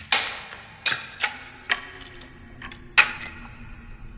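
About five sharp clicks or light knocks at uneven intervals, the loudest about one second in and again about three seconds in, over a faint low drone.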